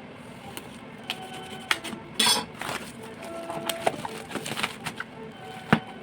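Scattered clicks and knocks of packaging and parts being handled while unboxing a hand coffee grinder, with a short rustle about two seconds in and a sharper knock near the end.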